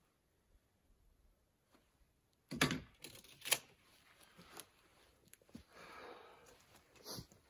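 Knocks and thumps of hand tools being handled and set down on a wooden plank deck: two sharp knocks about two and a half and three and a half seconds in, a few lighter ones, then a stretch of rustling and a last click near the end.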